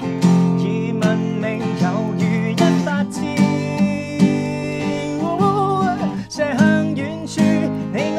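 Acoustic guitar strummed in a steady rhythm, accompanying singing of a Cantonese pop song; the voice holds and wavers on long notes about two-thirds of the way in.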